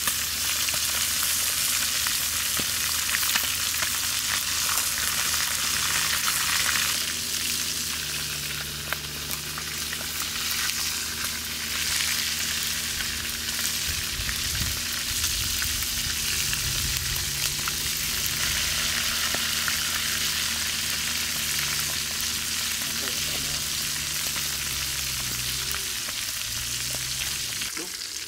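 Tokay gecko pieces deep-frying in hot oil in a metal wok: a steady sizzle with scattered crackles, a little louder for the first several seconds, as a metal spatula stirs them.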